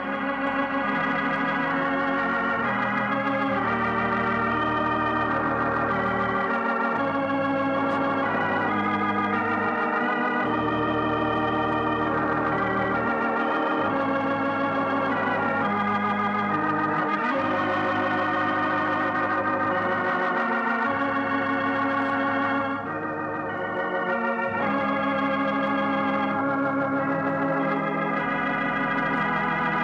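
Organ music playing the programme's closing theme: sustained chords with a slight waver over low bass notes that change every few seconds, briefly softer about three-quarters of the way through.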